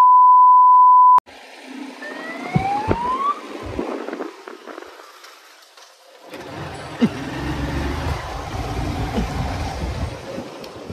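A loud, steady test-tone beep over colour bars that cuts off abruptly about a second in, followed by a short rising siren-like wail. From about halfway on, a motor scooter's engine running as it is ridden, with wind rushing over the microphone.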